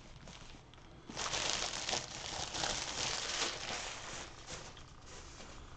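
Thin plastic shrink wrap being crumpled and crinkled in the hands: a dense crackling rustle that starts about a second in and fades out over the next few seconds.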